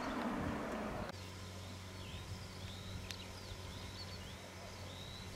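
An Audi Q5 fire-service car drives past close on tarmac with tyre and engine noise, cut off abruptly about a second in. Then small birds chirp repeatedly over a steady low hum, with a single click near the middle.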